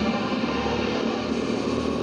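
Go-kart engine running steadily as a kart drives through a curve on the track.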